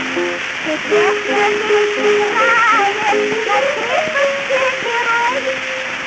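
Music playing from an early acoustic gramophone record of a song: a melody of held, wavering notes over steady, heavy surface hiss and crackle.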